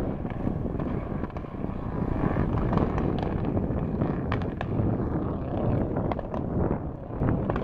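A rally car's engine running hard on a gravel stage, heard at a distance, with wind rumbling on the microphone and a few short sharp ticks.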